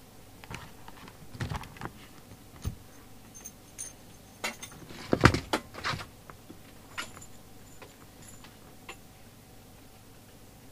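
Irregular clicks, knocks and light metallic rattles from hands handling power leads and connectors on a workbench while a CB radio is being wired up to its supply, busiest and loudest about five seconds in.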